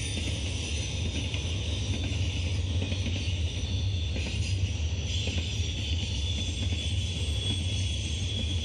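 Double-stack intermodal freight cars rolling past, a steady rumble of steel wheels on the rails.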